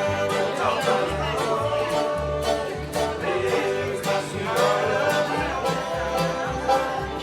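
Bluegrass music: quick plucked banjo and guitar over a bass that keeps a regular beat.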